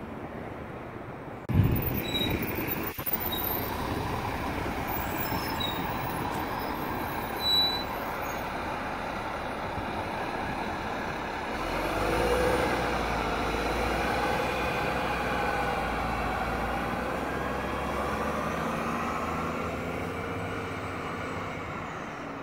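Cummins ISM diesel engine of a Gillig transit bus pulling away, its note climbing and dipping as it speeds up from about halfway in, with a deep rumble. A loud thump about a second and a half in.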